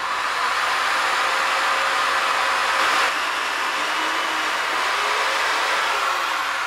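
Corded electric drill running steadily at full speed, boring holes into a hardwood board with a 4 mm bit.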